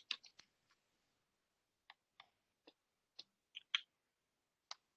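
Near silence with about ten faint, scattered clicks, the clearest a little before four seconds in.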